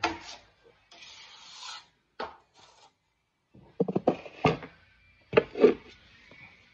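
Steel drywall taping knife working joint compound, with a scraping stroke about a second in and sharp metal clacks against the mud pan, bunched around four seconds and two loud ones near the end.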